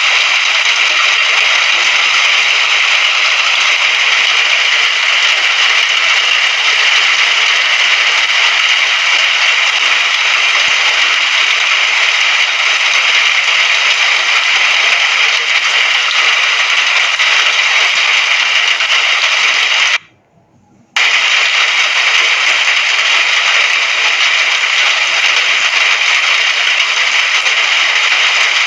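Steady hiss of recorded rain, cutting out abruptly for about a second roughly two-thirds of the way through, then resuming unchanged.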